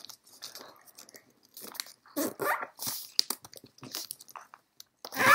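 Kami origami paper crinkling and crackling as hands collapse and crease box pleats: a run of crisp little crackles and rubs. A softer voice-like sound comes about halfway, and a short loud one near the end.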